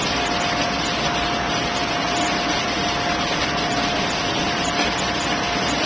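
Steady roar of a commercial kitchen's exhaust hood and gas wok burner, with a thin steady whine running through it.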